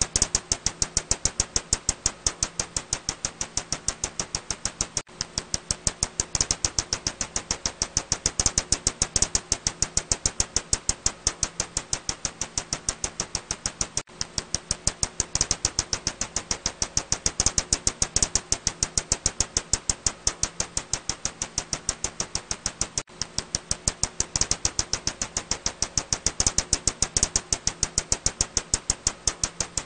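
Ussuri tube-nosed bat calls: a rapid, even train of sharp clicks that swells and fades in loudness every several seconds, over a faint low steady hum.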